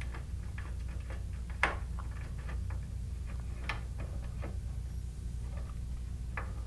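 Scattered small clicks and ticks from a screwdriver turning a terminal screw on a Honeywell VISTA-21iP alarm panel's terminal strip as a wire is landed, over a steady low hum.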